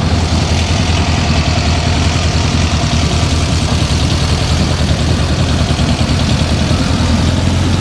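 Volkswagen split-window bus's air-cooled flat-four engine running steadily at low speed as the bus creeps past close by.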